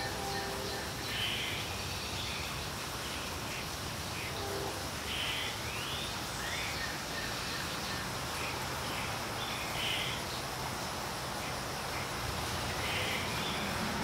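Background birdsong: short rising chirps repeating every second or so over a steady outdoor hiss, with two brief lower calls at the start and about four and a half seconds in.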